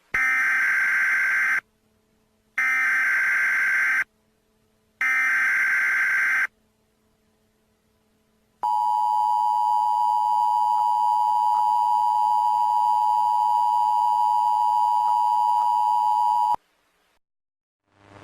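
Emergency Alert System tones. First come three short, buzzy bursts of SAME header data, each about a second and a half long with about a second between them. After a pause comes the steady two-tone EAS attention signal (853 and 960 Hz), held for about eight seconds before it cuts off suddenly.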